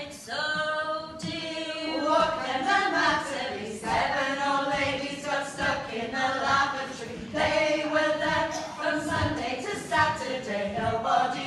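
A women's vocal group singing a cappella, several voices together with no instruments.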